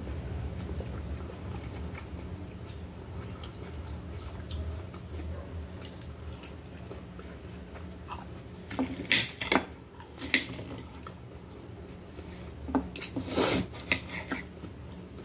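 Chewing melon, then a knife and fork clinking and scraping on a plate while cutting melon, in two clusters of sharp clicks: about nine seconds in and again near the end.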